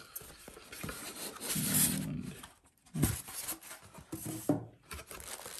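Packaging being handled: a white packing insert rubbing and scraping against the cardboard box as it is lifted out, with a couple of soft knocks about three and four and a half seconds in.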